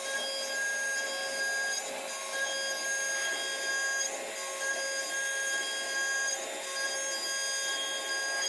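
AutoMateCNC VMC425 vertical machining centre running a milling operation: a steady spindle whine made of several fixed tones over a light cutting noise that swells and eases slightly as the cutter moves.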